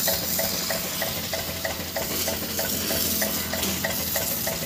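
Water jet from a hose hissing as it sprays onto a muddy tyre and the ground, over an engine running with a steady beat of about three knocks a second.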